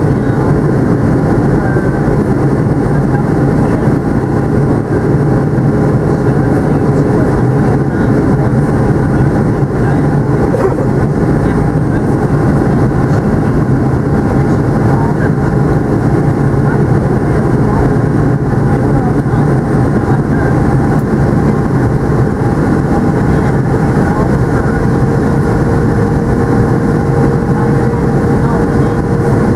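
Steady cabin noise inside a Boeing 757-200 at a window seat over the wing in flight: a loud, even rush of jet engine and airflow noise. A faint steady tone joins in near the end.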